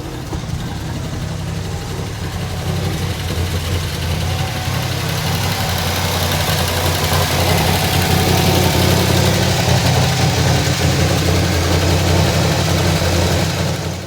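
1978 Camaro Z28's 350 small-block V8 running at idle, steady and growing louder over the middle of the stretch.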